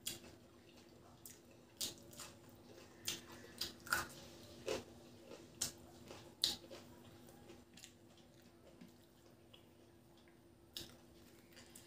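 Eating rice by hand: scattered, irregular small wet clicks and squishes as fingers work rice and fried fish on a plate, mixed with mouth sounds of chewing. A faint steady low hum underneath.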